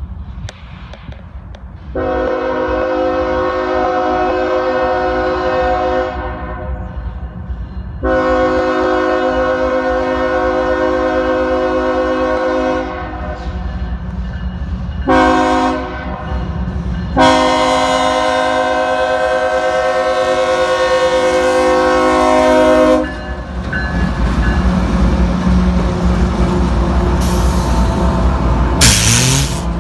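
A CSX freight locomotive's multi-chime air horn sounds the grade-crossing pattern: two long blasts, a short one, then a long one. The train then passes close by with a loud rumble of engine and rails, and brief high-pitched squeals near the end.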